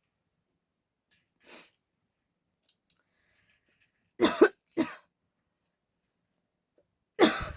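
A person coughing in separate short fits: one faint cough, then two loud coughs in quick succession about four seconds in followed at once by a third, and another loud cough near the end.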